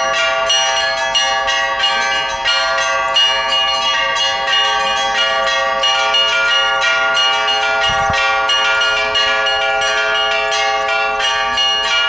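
Orthodox church bells ringing a continuous peal: several bells struck in rapid, overlapping strokes, their tones ringing on over one another.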